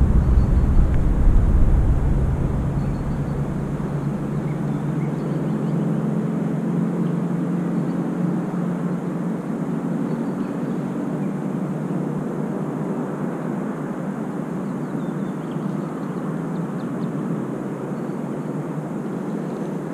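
Steady drone of a distant engine, a low hum that shifts slightly in pitch. Low wind rumble on the microphone during the first few seconds.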